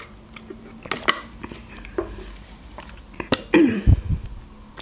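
Close-miked mouth sounds of drinking cola through a straw and swallowing: a few small, sharp wet clicks, then a short breathy sound with a falling pitch about three and a half seconds in.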